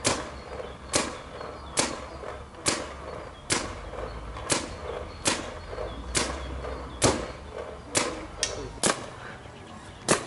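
Paintball marker firing single shots at a steady pace, about one sharp pop a second.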